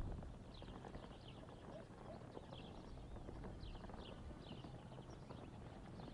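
Outdoor rural ambience: short, high bird chirps repeating every half second to a second over a low, steady rumble.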